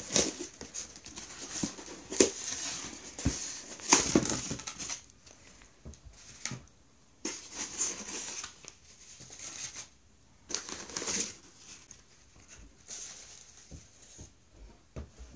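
Brown kraft paper packing crinkling and rustling as a polystyrene shipping box is unpacked by hand. It is busiest in the first five seconds, then comes in short scattered bursts.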